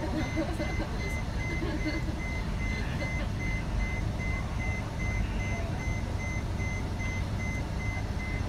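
Warning beeper on airport ramp equipment, a single high tone pulsing evenly on and off, over a low steady rumble, heard muffled through terminal window glass.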